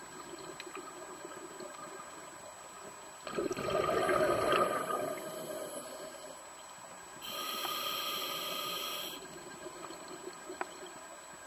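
Scuba diver breathing through a regulator: a gurgling rush of exhaled bubbles about three seconds in, lasting a couple of seconds, then a steady hiss of inhalation through the regulator about seven seconds in, lasting about two seconds.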